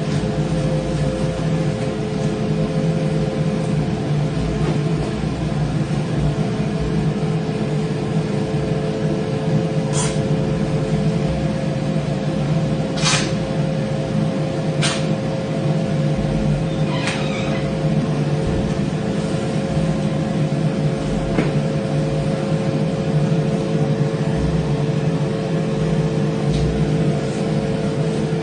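A steady mechanical hum holding a few constant tones, with four short sharp clicks in the middle stretch.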